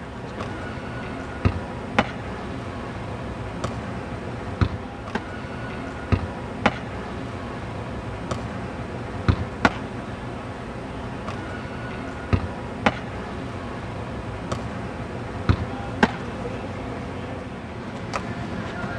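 Soccer ball kicked again and again, each strike followed about half a second later by a second thud as a goalkeeper stops it, over a steady background hum.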